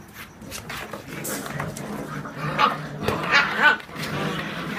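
Seven-week-old whippet puppies giving short, high-pitched cries at play, several in quick succession around three seconds in, amid the scuffling of paws and a cardboard box.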